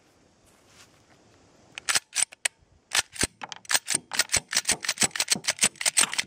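Glock 20 pistol with a .40 S&W conversion barrel, its slide racked by hand again and again to cycle aluminum-cased cartridges through it: a quick run of sharp metal clicks and clacks starting about two seconds in, as each round is chambered and ejected. This is a hand check that the ammunition feeds and ejects in the conversion barrel.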